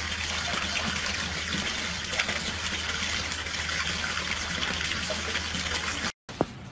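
Steady rush of running water, cut off abruptly about six seconds in.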